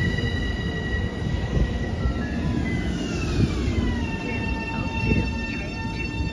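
Long Island Rail Road M7 electric train running past the platform: a heavy rumble of wheels on rail under several high, steady whining or squealing tones. The tones slide down in pitch together about two to four seconds in, then hold.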